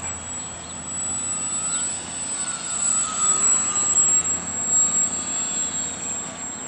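Flatout Cap 580 radio-controlled model plane flying overhead, its motor and propeller giving a steady whine that rises and falls in pitch as it manoeuvres, loudest about halfway through.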